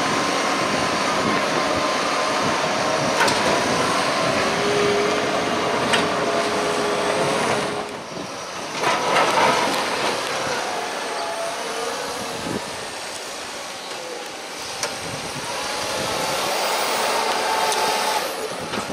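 Tractor engines running steadily at a silage clamp. First a JCB Fastrac 4220 runs while its 18-tonne Bailey trailer tips grass. From about eight seconds in, it gives way to a Fendt 724 Vario working as it pushes grass with a buckrake.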